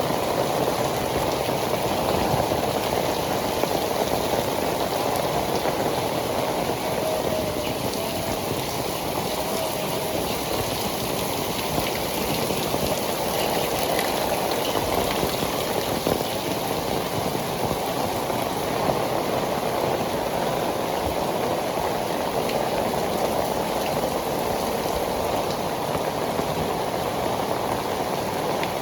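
Heavy tropical rain falling steadily, drops pattering on pavement in an even, unbroken downpour.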